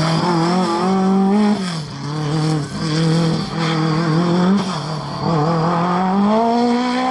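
Lancia Delta S4 rally car's twin-charged four-cylinder engine revving hard through a corner, its pitch climbing and dropping several times with throttle lifts and gear changes, then rising again near the end.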